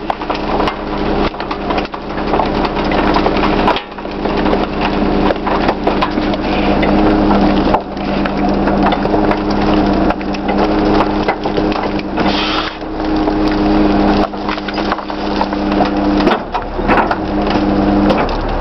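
Garbage truck's hydraulic packer compacting trash in the hopper: a steady drone from the engine and hydraulic pump under continuous cracking and crunching as the load is crushed. The drone drops out briefly near the end.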